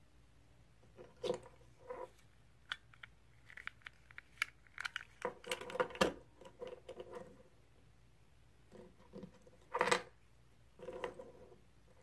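Handling of a Volkswagen flip-key fob: scattered plastic clicks and small rattles as the release button is pressed and the key blade is folded back into the fob, with a sharp snap about six seconds in and another burst of handling near ten seconds.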